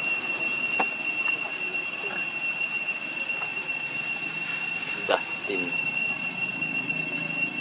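Steady high-pitched insect drone of several held tones, with a few short squeaks over it, the clearest about five seconds in.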